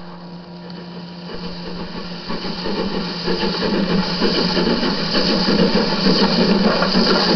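OO gauge model steam locomotive and its goods vans running along the track: motor whirring and wheels running on the rails, growing louder from about two seconds in as the train comes close.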